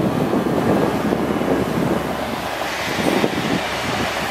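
Water truck spraying water onto gravel from its front spray heads, a steady rushing noise over its running Caterpillar C7 diesel, which drives the PTO spray pump. Wind buffets the microphone.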